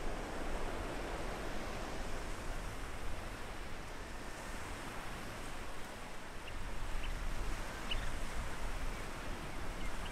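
Atlantic surf washing on a sandy beach, with wind making a steady wash of noise. From about six seconds in, a handful of short, high chirps from a small bird.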